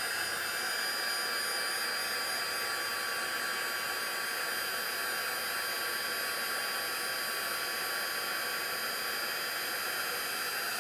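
Handheld craft heat embossing gun blowing hot air steadily, melting black embossing powder on a canvas tag. It is a constant whirring fan-and-air noise that doesn't change.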